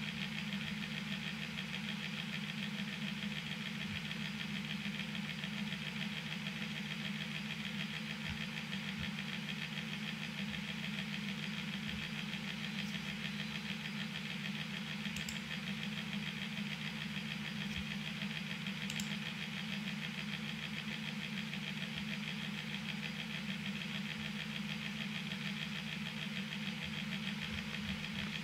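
Steady background hum with a faint hiss, with two faint clicks about halfway through.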